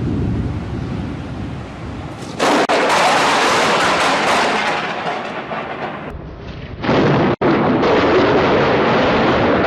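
Thunder from close lightning strikes: a sudden sharp crack about two and a half seconds in and another about seven seconds in, each running straight on into a long, loud rumble.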